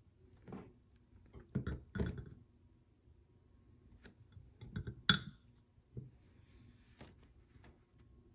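Small handling sounds as a metal jump ring is worked into a drilled polymer clay earring: a few soft taps and rustles, with one sharp, bright clink about five seconds in.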